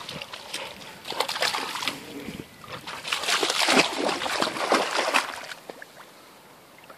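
A dog wading through shallow lake water, its legs splashing and sloshing in an uneven run. The splashing is loudest in the middle and dies away near the end.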